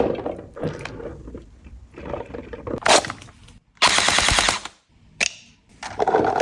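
Toy HK416D gel blaster firing in short bursts of rapid clicks, with the longest automatic burst about four seconds in.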